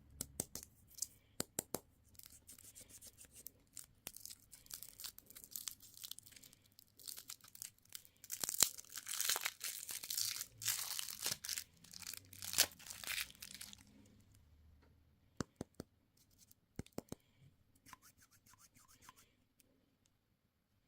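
Candy packaging being torn open and crinkled by hand, with scattered sharp clicks and taps. The tearing is densest and loudest about halfway through, then dies down to a few light clicks.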